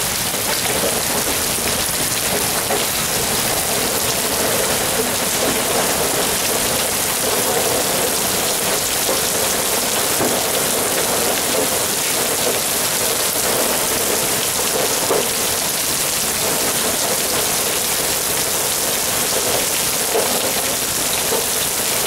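Hail and heavy rain pelting a shingled roof and a gutter downspout: a dense, steady cacophony of small hailstones clattering and bouncing, mixed with the hiss of the rain.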